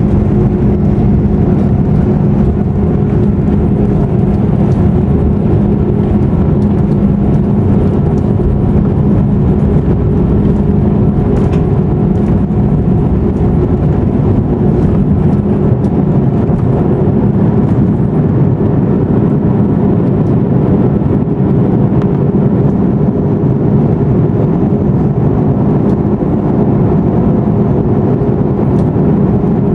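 Airbus A340-600's Rolls-Royce Trent 500 engines at takeoff power, heard inside the cabin as a loud, steady drone with a low hum and a rush of air as the jet takes off and climbs.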